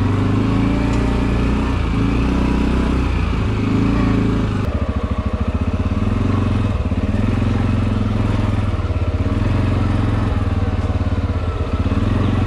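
ATV engine running steadily under load, its revs rising and falling as the machine rides, with the engine's pulses slowing briefly about five seconds in.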